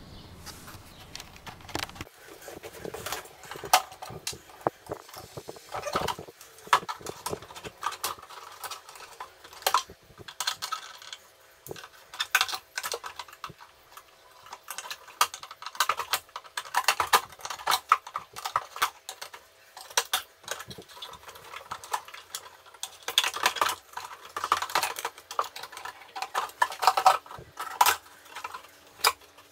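Irregular sharp clicks and clatter from hands working inside an old electronics case: kitchen scissors snipping through wires, and the front panel knocking as it is lifted. The clicks come in dense clusters with short pauses between.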